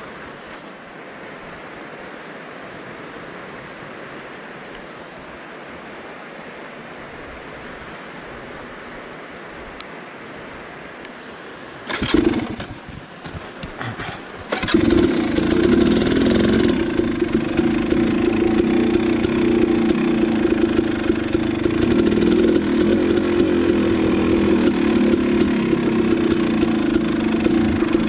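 A steady rushing noise, then about twelve seconds in a KTM 300 XC two-stroke dirt bike engine fires briefly and dies, catches on the next try a couple of seconds later, and runs on steadily.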